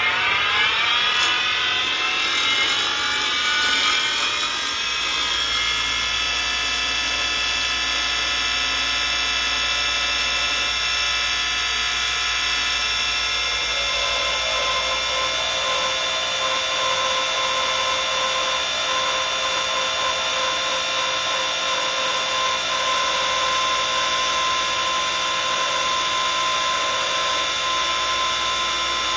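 Wood lathe's electric motor whining as it spins up, the pitch rising over the first few seconds, then running steadily at speed while a turning tool cuts the spinning spindle blank.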